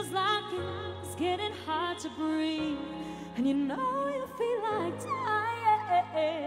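A female singer performing live, singing quick melismatic vocal runs that sweep up and down in pitch over sustained backing chords that shift every couple of seconds.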